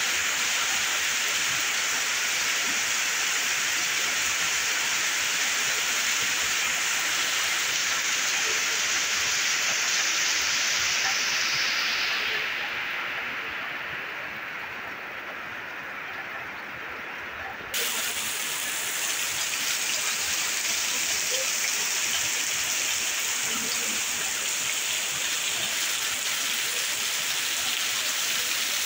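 Heavy rain pouring down onto a flooded street and corrugated metal roofs, a steady hiss. About twelve seconds in it turns softer and duller for several seconds, then comes back suddenly at full strength near eighteen seconds.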